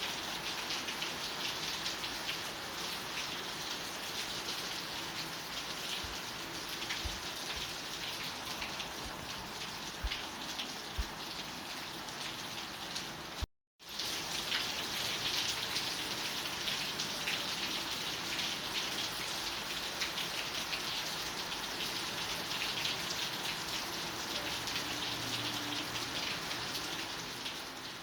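Steady rain falling, a dense patter of drops on a surface, with a few low thuds in the first half. About halfway through the sound cuts out completely for a split second, then resumes.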